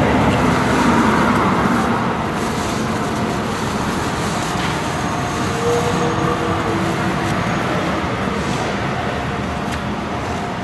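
Steady road traffic noise from vehicles on the street, a little louder for the first couple of seconds.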